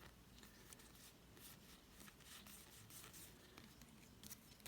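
Near silence, with faint scattered rustles and ticks of a stack of trading cards being handled and turned over.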